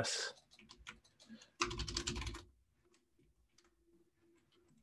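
Typing on a computer keyboard: a quick run of keystrokes about one and a half seconds in, then a few faint, scattered key clicks.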